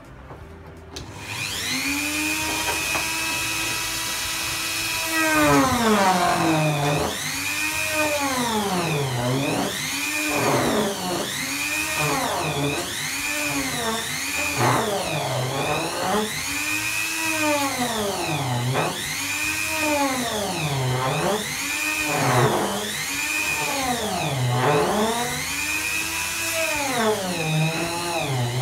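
Small handheld rotary tool spinning up about a second in and running steadily, then cutting into a clear plastic lens. Its pitch sags and recovers every second or two as the cutter bites into the plastic and frees again.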